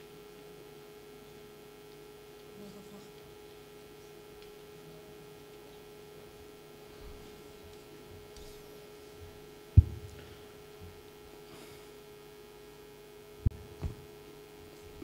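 Steady electrical hum from the hall's sound system, one unchanging tone. A loud knock on the microphone about ten seconds in, and two smaller knocks near the end.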